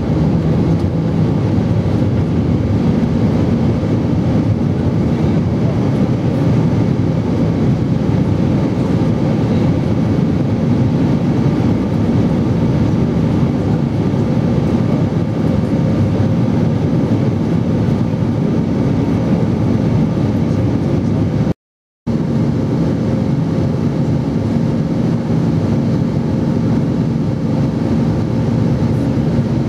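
Steady cabin noise of an Airbus airliner climbing after takeoff: jet engine drone and rushing air with a low hum. The sound drops out for a split second about three-quarters of the way through.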